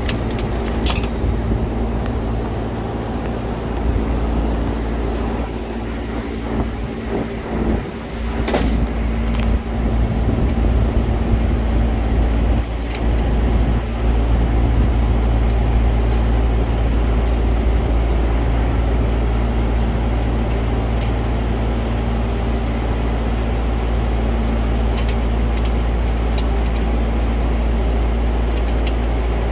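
Steady, loud low drone of running refrigeration machinery, with a hum of a few steady tones. Scattered light clicks and rattles come from wire leads and connectors being handled at the fan motor, the sharpest about eight seconds in.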